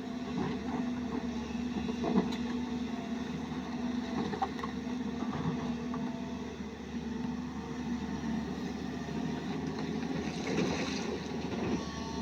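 Excavator's diesel engine running steadily, with a few light knocks and a rougher, louder spell near the end.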